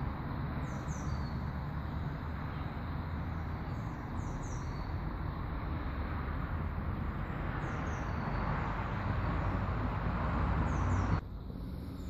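Steady outdoor background rumble and hiss, with small birds chirping briefly four times, some in quick pairs. The noise drops off abruptly near the end.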